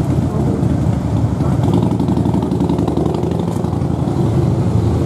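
Steady low rumble of a motor vehicle's engine running in street traffic.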